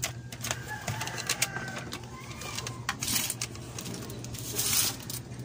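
Hands handling tools and parts: scattered clicks and light knocks, with two short rustling hisses about three and four and a half seconds in.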